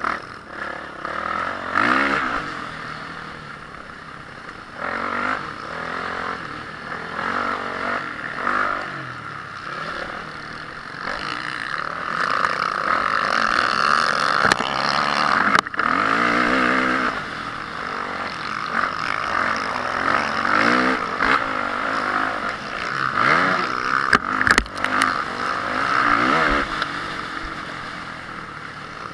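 Honda CRF450R single-cylinder four-stroke motocross engine revving hard and backing off over and over, its pitch rising and falling as the bike accelerates and shifts around the track. A few sharp knocks come through about halfway through and again near the end.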